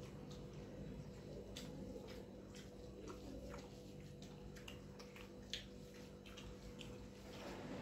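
Faint eating sounds: scattered small clicks and smacks of chewing and of fingers mixing rice on a steel plate, one sharper click about five and a half seconds in, over a steady low hum.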